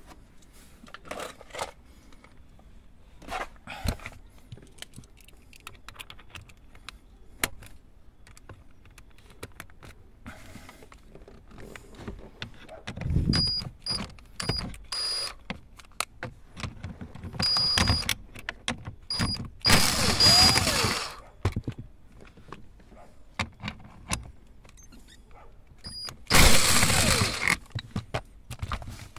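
Plastic interior trim and tools being handled under a car dashboard: scattered clicks and rattles, with several louder spells of scraping and rubbing.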